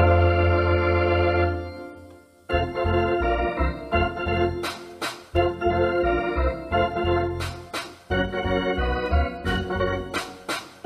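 Organ music: a held chord that fades away by about two seconds, then a quick tune of short notes with a few short crashes mixed in.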